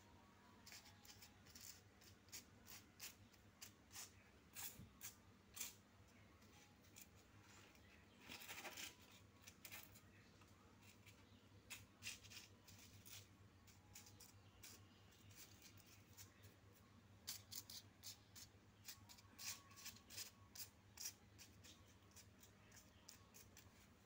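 Paper recharge vouchers being spread and shuffled by hand on a concrete floor: faint, scattered paper clicks and rustles, with a longer rustle about eight seconds in.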